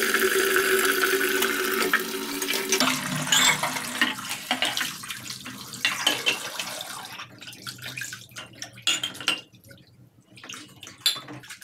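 Kitchen tap running hard into a plastic basin in a steel sink, with a steady rush for the first few seconds. Then dishes are rinsed under it: splashing, with the clink of utensils and glass, growing quieter and more broken toward the end.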